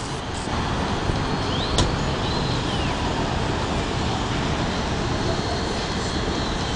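Steady road traffic noise, with a sharp click just under two seconds in and a few short high squeaks around it.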